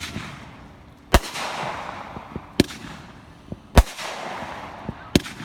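Consumer fireworks going off in a string of loud bangs, five of them about one every second and a quarter, each followed by a fading hiss.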